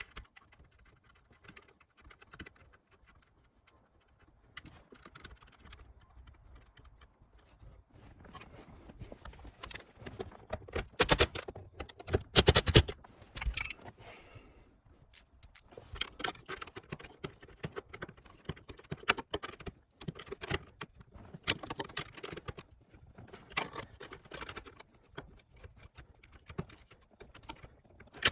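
Hand tools clicking and clanking on metal during work on a car's shifter, in irregular knocks and rattles. A louder cluster of clanks comes near the middle.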